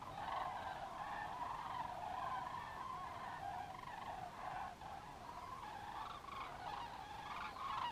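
A large flock of cranes calling, many distant overlapping calls blending into one unbroken chorus.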